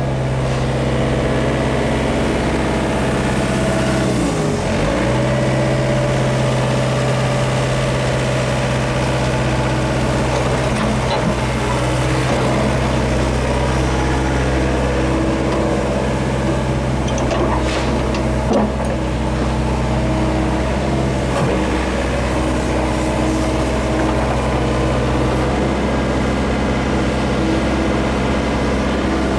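Hyundai R55 excavator's diesel engine running steadily, its pitch sagging briefly about four seconds in and then recovering, with a few light knocks later on.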